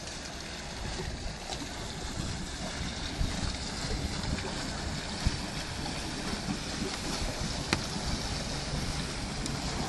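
Wind buffeting the microphone: a steady hiss with a low rumble. A few sharp clicks or knocks cut through, the loudest about three quarters of the way in.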